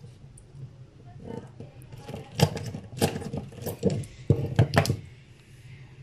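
A handheld RJ45 crimping tool and network cable being handled: a run of about half a dozen sharp metallic clicks and clatters in the middle, over a low hum.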